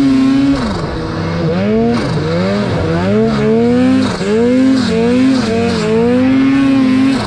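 Turbocharged Arctic Cat M8000 snowmobile's 800 two-stroke engine held at high revs, throttled off about half a second in, then revved up and down about six times in quick succession.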